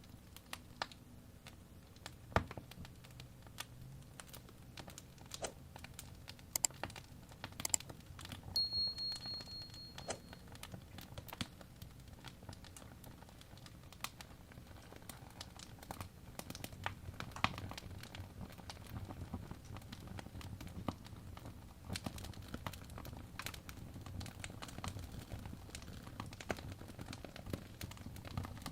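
Wood fire crackling: irregular sharp pops and snaps over a low rumble of burning, with a brief thin high whistle about a third of the way through.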